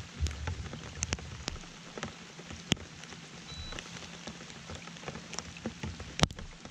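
Rain: scattered raindrops ticking irregularly close to the microphone over a faint steady hiss, with one sharper tick near the end.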